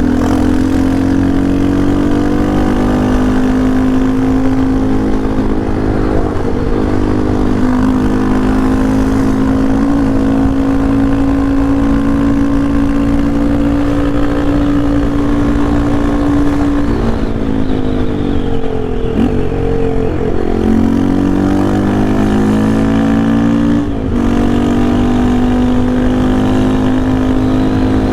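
Yamaha Lander 250's single-cylinder engine running while being ridden, held at steady revs for a long stretch. About two thirds of the way through the revs fall away, then climb again, with a brief break near the end like a gear change before it settles back to steady revs.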